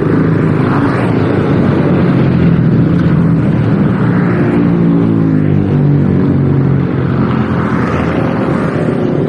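Motorcycle engine running loudly, with wind on the microphone; about four seconds in, its note drops in a few steps over the next couple of seconds.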